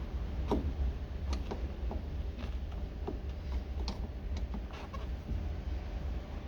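Irregular small clicks and taps from prying at the retaining clip behind the window crank handle of a 1991 Suzuki Jimny JA11 door, over a steady low rumble.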